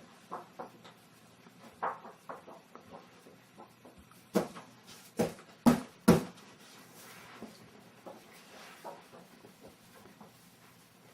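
Scattered light knocks and clatter, with four sharper knocks in quick succession about halfway through.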